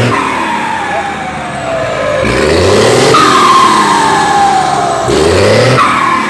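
Volkswagen 17-210 bus's turbo-diesel engine blipped repeatedly, about every three seconds. Each rev is followed by a loud, falling whistle from its Schwitzer turbocharger, which has been modified (a 'pente') to make it sing. The engine sounds quite loud because the exhaust is semi-direct and the injection pump's bypass is open.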